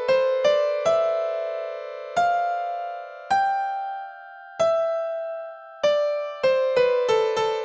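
Background music: a simple melody of single struck notes that ring and fade. The notes come quickly at first, slow to about one a second in the middle, and quicken again near the end.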